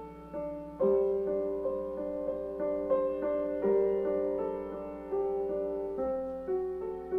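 Solo piano music: a flowing run of struck notes and chords, each ringing and fading, getting louder about a second in.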